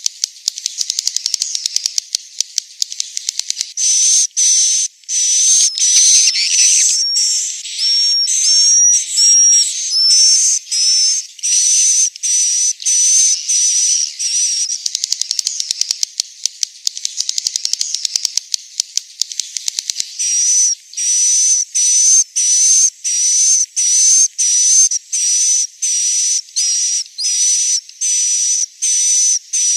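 Swiftlet roosting calls: rapid dry clicking at first, then a long run of short, high, buzzy chirps about two a second. The chirping drops back to clicking for a few seconds in the middle before picking up again.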